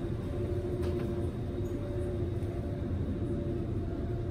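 Ferry boat's engines running steadily under way: a low, even drone with a constant hum on top.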